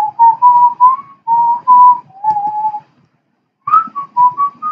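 A person whistling a short tune of clear single notes that step up and down, breaking off for under a second about three seconds in and then carrying on.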